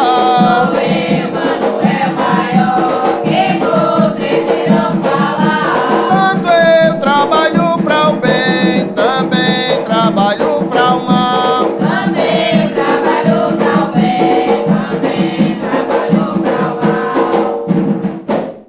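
A Jurema ponto (sacred song) sung over drums, fading out near the end.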